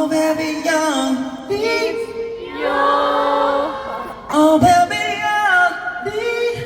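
Voices singing long held notes that slide between pitches, with no clear instrumental backing.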